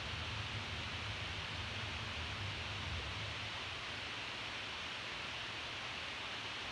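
Steady room noise: an even hiss, with a low hum that fades out about halfway through.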